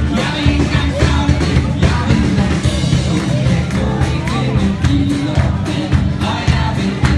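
Live cover band playing an upbeat rock song with a singer over a steady beat.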